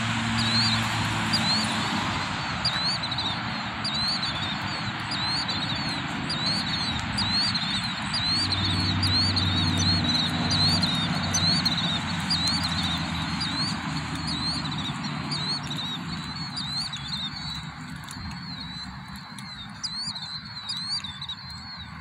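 Birds screeching at night: many short, sharp calls repeated several times a second, thinning out near the end. Underneath runs a steady wash of background noise, with a low vehicle hum swelling in the middle.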